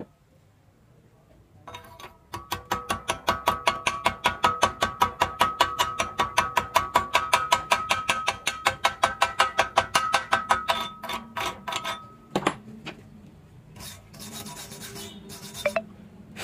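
A pointed chipping hammer strikes rapidly along a fresh stick-weld bead on steel angle, about five or six blows a second, knocking off the slag, with the steel ringing at each blow. The blows thin out, and near the end there is a short bout of scraping on the metal.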